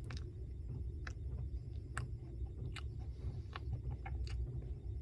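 A person chewing a custard slice with wet mouth clicks and smacks, about one every second, over a steady low hum.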